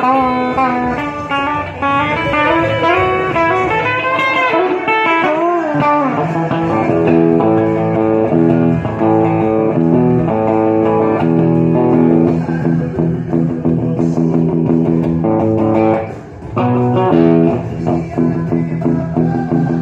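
Rockabilly band music led by electric guitar, with bass underneath. For about the first six seconds the guitar plays lead lines that bend and slide in pitch, then it settles into held notes and chords; the sound drops briefly about 16 seconds in.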